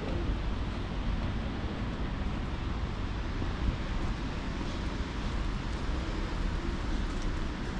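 Outdoor town ambience: a steady low rumble with an even hiss over it.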